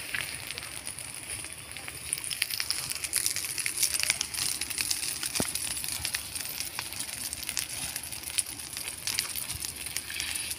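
Grass and brush fire crackling: many sharp, irregular pops over a steady high hiss.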